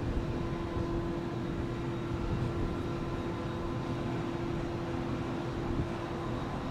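Steady low rumble of distant city and rail traffic, with a steady hum that fades out near the end.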